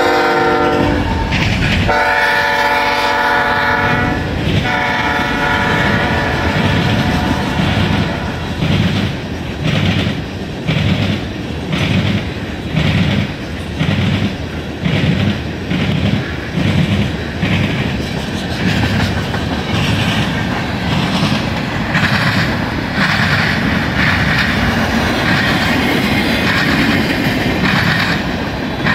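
Freight train's locomotive air horn sounding a chord three times, the last blast ending about six seconds in, as the locomotives pass close by. The cars then roll past with a steady clickety-clack of wheels over rail joints, a little more than one beat a second, and a louder rolling rail noise near the end.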